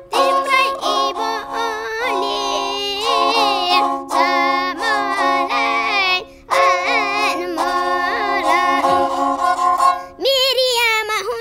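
A Nepali sarangi, a bowed folk fiddle, sounds held notes on its strings while a boy sings over it in a wavering voice. The sarangi stops about ten seconds in and the voice goes on alone.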